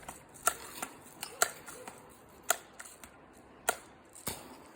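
BB guns being cocked and fired at a target: a series of short, sharp pops and clicks, the loudest about two and a half, three and a half and four and a quarter seconds in.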